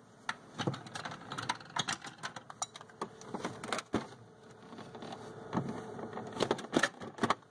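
Scattered clicks, taps and rustling of hands and a power cord while an electric pressure cooker's plug is pushed into a wall outlet.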